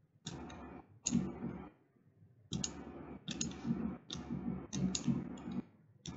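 Quiet, irregular clicking of a computer mouse and keyboard, about seven clicks, each followed by a brief rustle, as a map is worked on a virtual tabletop.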